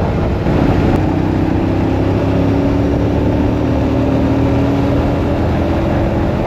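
Royal Enfield Shotgun 650's parallel-twin engine running at a steady cruising pitch on the move, with wind noise rushing over the microphone.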